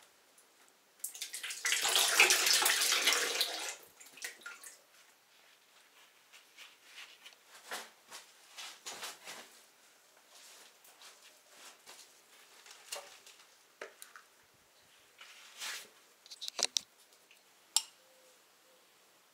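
Used engine oil pouring and splashing out of the removed oil filter for a little under three seconds. After that come scattered light clicks and knocks of parts being handled.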